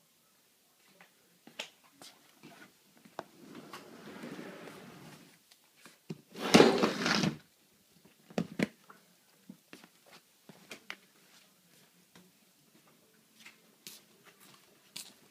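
Household handling sounds: a soft sliding swish, then a loud clattering rattle about six and a half seconds in as a clear plastic box full of Lego bricks is moved off a shelf, with scattered knocks and clicks around it. Footsteps on a tiled floor near the end.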